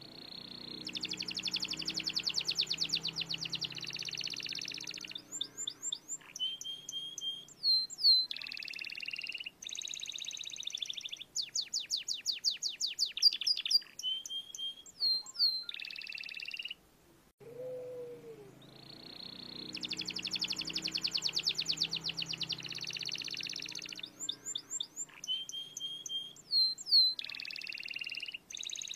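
Domestic canary singing a long song: fast rolling trills, whistled notes and sharp down-slurred chirps in quick succession. A short break comes a little past halfway, then the same sequence starts again.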